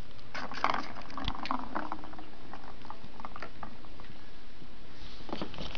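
Light clicking and rattling of a plastic ball-track cat toy, a ball knocking around in its channel as a cat plays with it: a quick flurry over the first couple of seconds, scattered clicks after, and another flurry near the end.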